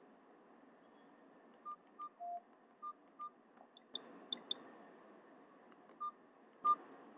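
Nokia 216 feature phone's keypad beeps as its keys are pressed: about seven short, faint tones, mostly at one pitch with one lower, some in quick pairs, and a few fainter higher clicks midway, over low hiss.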